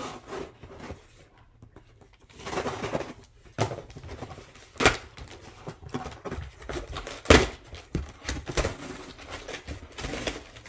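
Cardboard shipping box being opened: scissors cutting through the packing tape, then tape tearing and the cardboard flaps rustling and scraping, with two sharp knocks of cardboard about five and seven seconds in.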